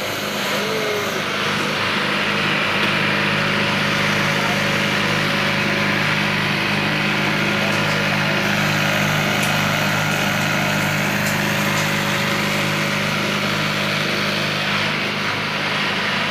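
Industrial single-needle sewing machine running steadily, its motor humming with an even mechanical whir, a little louder after the first second.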